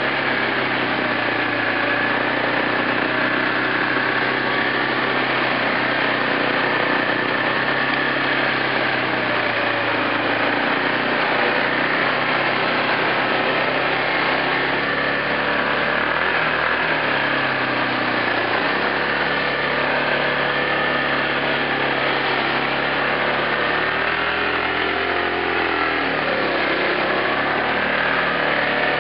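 Yamaha Grizzly 450 ATV's single-cylinder four-stroke engine running steadily at low throttle while wading through a shallow creek, with water churning and splashing around the machine. The engine note rises and falls a few seconds before the end.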